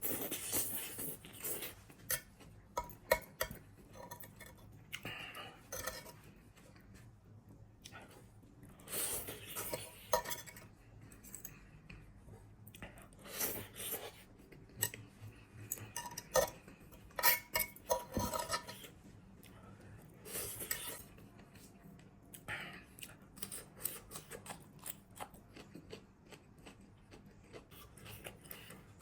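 Cutlery clinking and scraping against dishes in irregular bursts, the sound of eating a plated meal close to the microphone.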